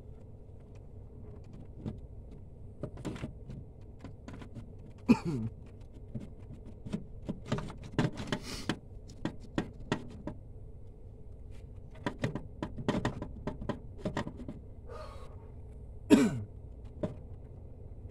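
Irregular metal clunks, taps and knocks as an alternator is worked down into its mount in the engine bay, with two louder scraping knocks, one about five seconds in and one near the end.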